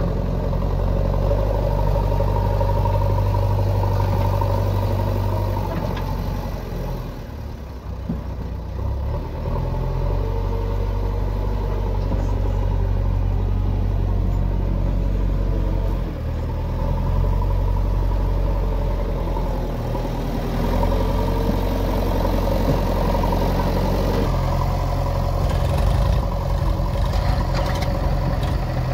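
JCB backhoe loader's diesel engine running steadily as the machine drives over rough ground, the rumble swelling and easing. Near the end a rapid clatter joins in.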